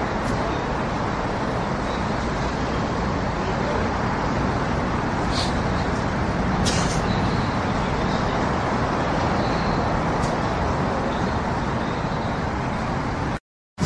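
Steady noise of road traffic, with a couple of faint clicks partway through; it cuts off abruptly just before the end.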